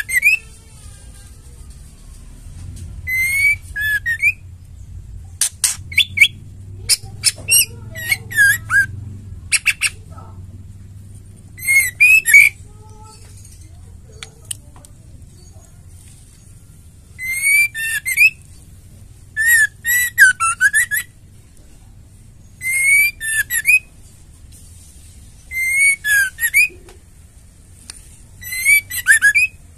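White-rumped shama (murai batu) singing in short loud bursts every two to three seconds, each a quick whistle run together with rapid sharp notes; between about five and ten seconds in it gives a string of separate sharp, clipped notes instead.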